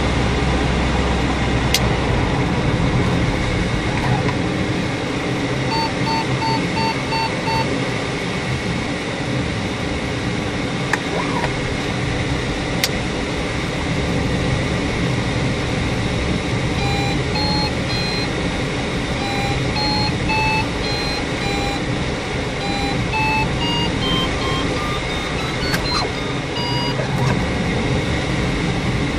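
Steady cockpit drone of a light aircraft in flight, with an electronic variometer beeping over it: a short run of even beeps about six seconds in, then from about halfway a long series of beeps whose pitch steps up and down and climbs near the end. The rising beeps are the vario's climb tone, signalling the aircraft climbing in lift.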